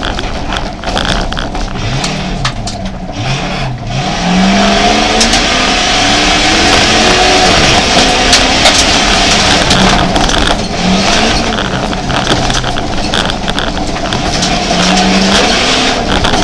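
Jeep Grand Cherokee's engine heard from inside the cabin, driven hard on a dirt rally stage: the engine note repeatedly climbs and drops under acceleration, over constant road noise with clicks and rattles. It grows louder about four seconds in.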